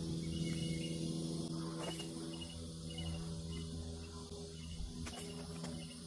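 Insects chirping in short repeated high notes over a steady low hum.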